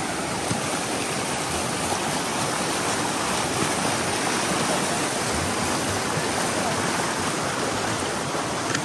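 Fast river rapids rushing over rocks in a very swift current: a steady whitewater noise with no breaks.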